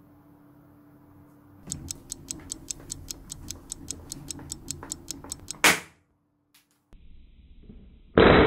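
Fast, even clock ticking, about five ticks a second, in the style of a time-bomb timer, ending in a sharp crack. After a second of dead silence, a loud sudden burst near the end dies away over about a second and a half.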